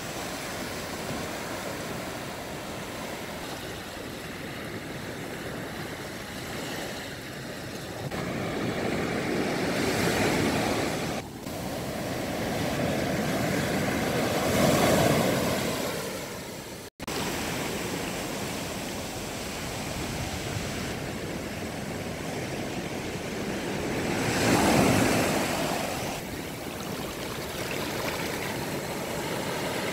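Sea surf breaking and washing up a sand beach, a steady rush that swells louder as each wave breaks, loudest about halfway through and again near the end. The sound cuts out for an instant just past halfway.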